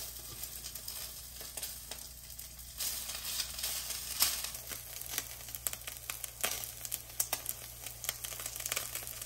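Vegetable, vermicelli and egg pancake sizzling in a carbon-steel wok, with a steady frying hiss. A slotted spatula scrapes and taps against the wok now and then.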